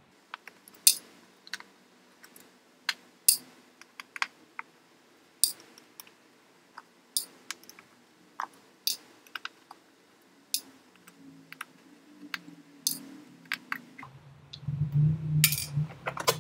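Sharp little metal clicks, irregular and about one a second, from a Phillips screwdriver and the tiny bottom-case screws of a unibody MacBook Pro being taken out. A duller handling noise comes in near the end.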